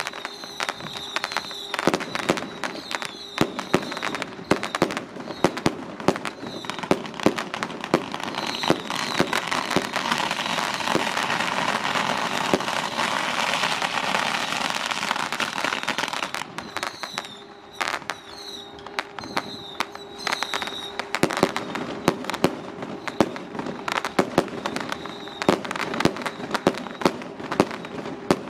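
Strings of firecrackers going off: rapid, irregular pops that thicken into a dense continuous crackle for several seconds in the middle, then thin back out to scattered bangs.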